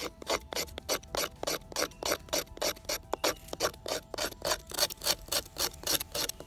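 A knife blade scraped rapidly back and forth across a peeled wooden stick, a quick regular rasping of about three to four strokes a second. The scraping shaves the wood into fine dust for use as fire-starting tinder.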